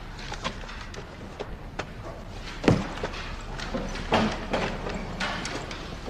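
A class packing up and leaving a lecture hall: scattered knocks, clatter and footsteps from students, desks and seats, with a louder thump about two and a half seconds in and another about four seconds in.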